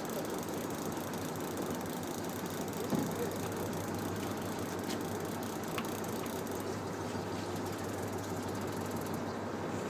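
Boat engine running steadily with a low hum under a hiss of wind and water, with a few faint clicks.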